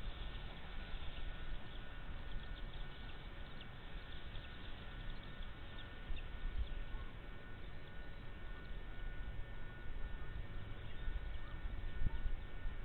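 Outdoor microphone ambience: a low wind rumble with a faint steady whine, and scattered faint, short high chirps, mostly in the first half.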